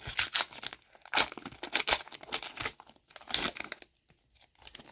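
Trading card pack wrapper being torn open and crinkled in the hands, a run of irregular crackles and rips with a brief pause near the end.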